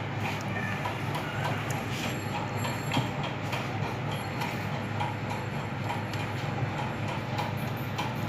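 Steady low rumbling background noise with a hiss, and a few faint light clicks.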